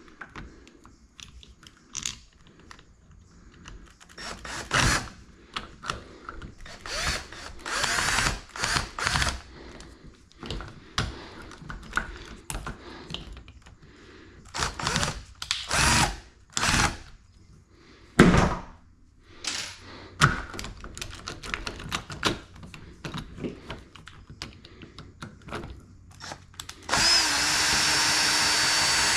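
Irregular knocks, scrapes and clatter of hands-on repair work, then near the end a power drill runs steadily for about two seconds.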